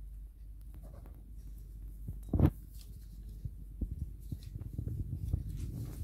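Light clicks and brushing of painting tools being handled on a desk, over a low room hum, with one louder knock about two and a half seconds in.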